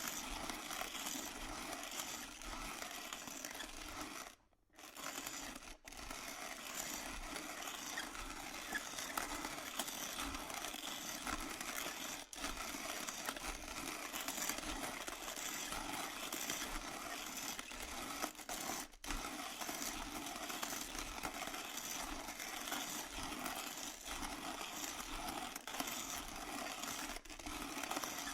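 Electric coffee grinder running steadily, its motor humming while beans crackle and grind through the burrs. The sound briefly cuts out about four and a half seconds in, then carries on.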